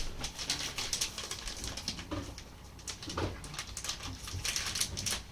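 Mini chocolate chips being poured into a measuring cup: a dense rattle of many small ticks, easing off briefly midway.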